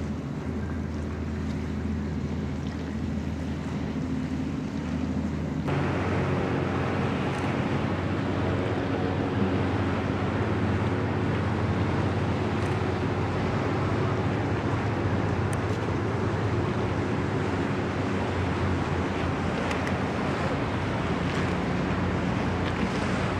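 Steady low drone of a boat engine, with water splashing and wind on the microphone. About six seconds in, the hiss of water and wind becomes louder.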